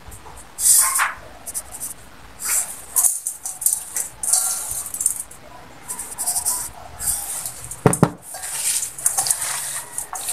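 Hands squeezing and mixing chopped banana pith with salt in a stainless steel bowl, with repeated irregular wet scrunching and rustling. There is a sharp knock about eight seconds in.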